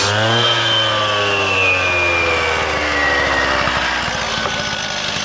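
Petrol cut-off saw with a water-fed diamond blade, its engine winding down: the pitch falls steadily over about five seconds as the saw comes off the limestone slab at the end of the cut.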